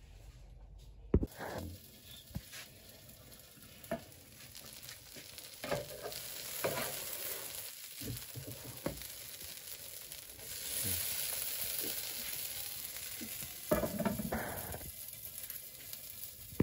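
Pizza sizzling as it fries on the hot base of an electric skillet: a steady hiss, with scattered clicks, knocks and scrapes from a plastic spatula and the glass lid, and a louder clatter about fourteen seconds in.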